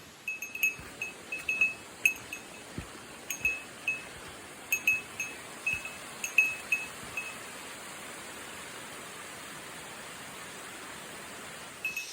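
A small metal bell jingling in irregular strikes, a couple a second, that stop about seven seconds in, over a steady hiss.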